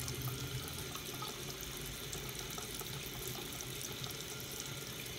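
Bathroom sink tap running steadily, a thin stream of water splashing onto the drain stopper.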